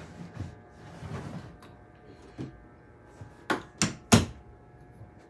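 Hardware being worked while a hydraulic door closer is fitted to a door: quiet handling clatter, then three sharp knocks in quick succession a bit past halfway, the last one loudest.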